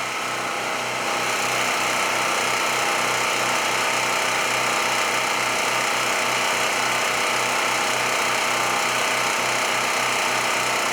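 Two Champion 4000-series portable generators running at the same time, a steady engine drone with an even, rapid pulse. It grows a little louder about a second in, then holds steady.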